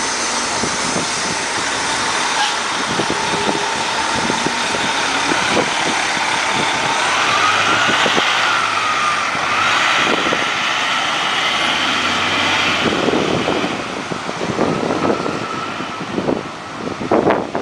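Diesel engine of a Coach USA highway coach running as the bus pulls away and accelerates, with a whine that rises in pitch about seven seconds in, then fading as it drives off. Gusts of wind hit the microphone near the end.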